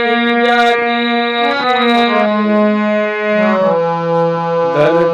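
Harmonium playing a melody in held, reedy notes over a sustained lower note, which steps down to a lower pitch about three and a half seconds in.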